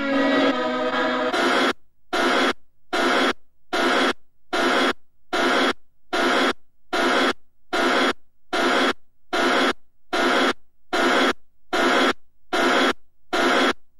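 A choir sings for about a second. It gives way to an even, rhythmic pulsing of hissy, radio-like noise bursts, a little more than one a second, with silence between them, stopping just before the end.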